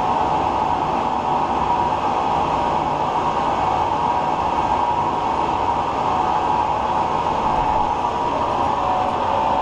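Large 36x144 engine lathe running steadily at about 112 RPM under power feed, taking a carbide turning cut. Its drive and gearing make a loud, even drone with a steady high tone through it.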